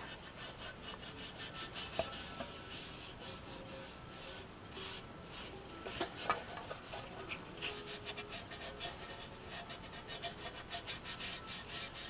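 Cloth rag rubbing in quick repeated strokes over the painted side of a tin canister, working oil paint antiquing into its rim and creases.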